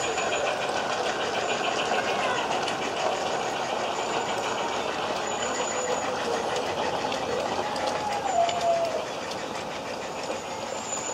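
A little girl crying and wailing while her hair is washed, heard through an open bathroom window, her voice rising and falling in long drawn-out cries. Under it runs the fast, even ticking of a garden-railway train moving along the track.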